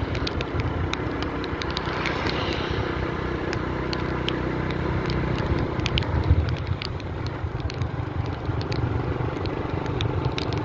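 Motorbike engine running on the move, a steady low hum, with many short sharp clicks and rattles over it.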